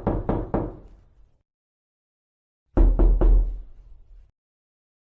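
Knocking on a door in two quick rounds: the last few knocks of one round in the first half-second, then about four more rapid knocks nearly three seconds in, with dead silence around them.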